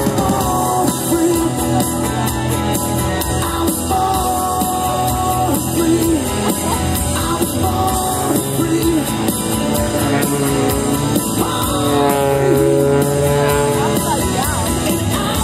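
Rock music with singing playing over the show's loudspeakers.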